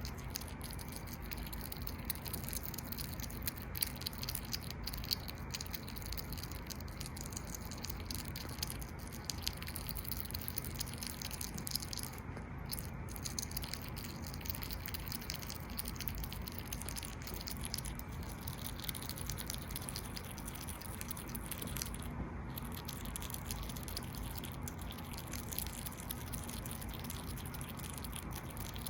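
A pet hedgehog chewing boiled egg: many small, irregular wet clicks and smacks over a steady low background hum.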